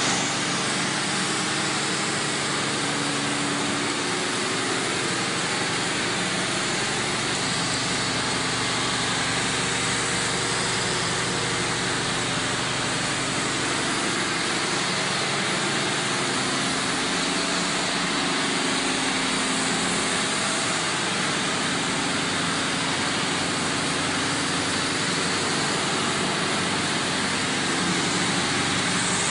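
Plantain chips processing line running: the steady hum and hiss of the slicers, conveyors and their motors, with no change in level.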